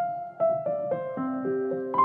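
Background piano music: a slow falling melody of single struck notes, one every quarter to half second, each note ringing on under the next.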